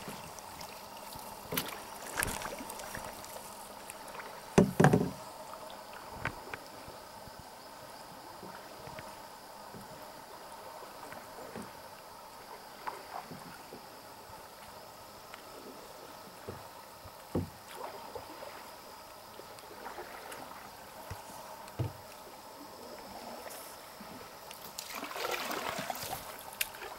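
Canoe being paddled on a calm river: quiet paddle strokes through the water, with scattered short knocks against the canoe, the loudest about five seconds in.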